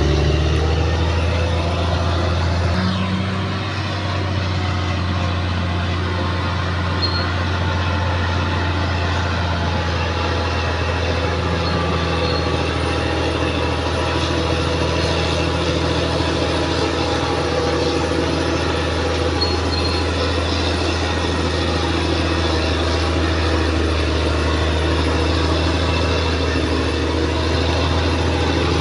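Caterpillar D6R XL bulldozer's diesel engine running steadily with a deep, even drone, shifting slightly about three seconds in.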